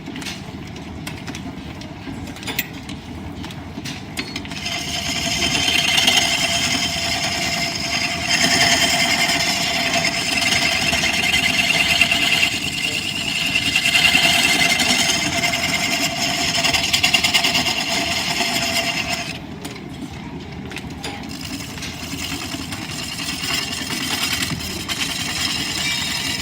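Line-shaft-driven wood lathe running, its shafting and belts giving a steady rumble. A turning tool cutting the spinning wood adds a loud, hissing cut from about five seconds in; this eases off a little after halfway and builds again near the end.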